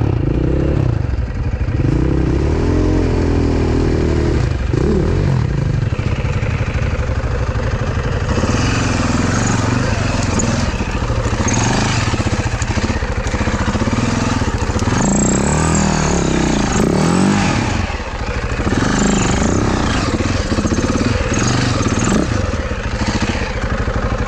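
Off-road dirt bike engine running and revving up and down in repeated short blips at low speed. From about eight seconds in, a noisy rattling and scraping is added over the engine.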